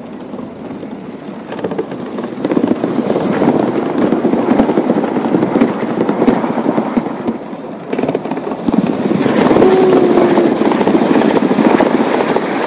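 Gauge 1 model train running past close by on the track: a rolling rumble with rapid clicks from the wheels. It builds a couple of seconds in, eases briefly near two-thirds of the way through, then is loudest as the coaches pass.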